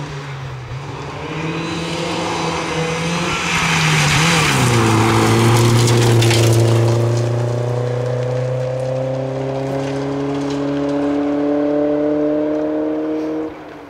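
Volvo rally car on a gravel stage, engine pulling hard. About four and a half seconds in the pitch drops sharply at an upshift, then climbs slowly and steadily in the next gear as the car drives away. Gravel and tyre noise is loudest around the middle, and the sound cuts off suddenly near the end.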